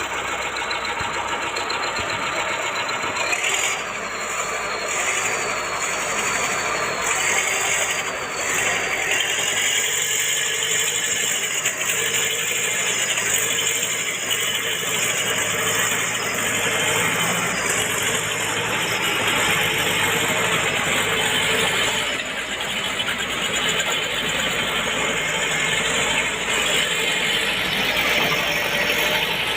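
A vehicle engine running steadily, with rattling.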